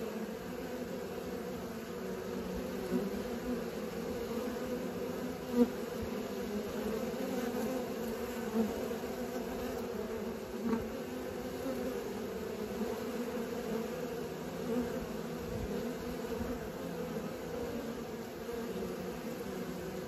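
Honeybees buzzing at a hive entrance: the steady hum of many wings, with brief louder swells now and then.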